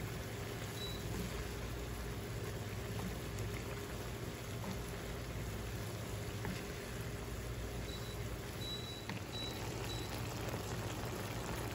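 Squid adobo sauce simmering in a pan on the stove, a steady bubbling with faint small pops, stirred now and then with a wooden spatula, over a steady low hum.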